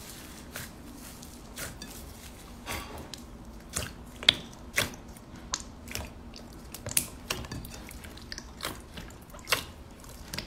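Hand squeezing and pressing thick slime mixed with foam beads: irregular wet clicks, squelches and pops a few times a second, one of the sharpest about four seconds in.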